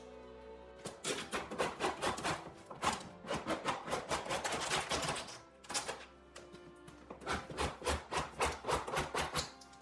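Hand tools trimming and filing the edging strip flush on the end of a laminate worktop: quick rasping strokes, about five a second, in two runs with a short pause about halfway through.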